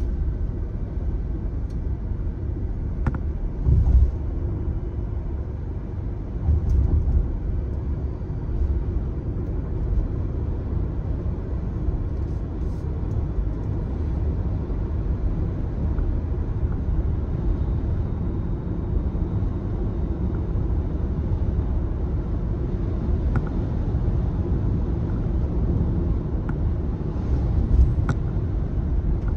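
Steady low rumble of tyre, road and engine noise inside a moving car, with a few brief louder surges.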